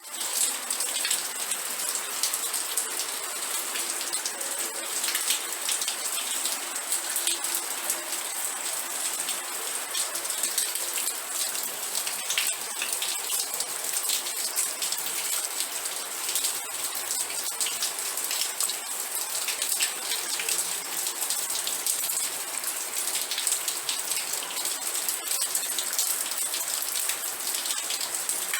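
Steady heavy rain, a dense patter of drops hitting surfaces. A steady high-pitched tone runs under it throughout.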